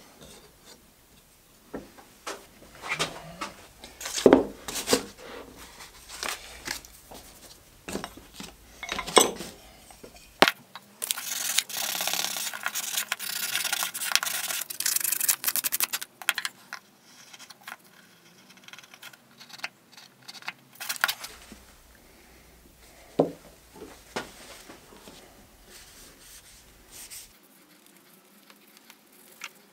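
Wooden clamps and plane parts knocking and clicking as they are handled, then about five seconds of hand-sanding a small wooden part with sandpaper, a dense scratching, followed by a single knock and quieter handling.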